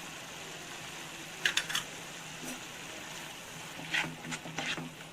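A few short clinks and scrapes of kitchen utensils, in a quick cluster about a second and a half in and again near the end, over a faint steady hiss.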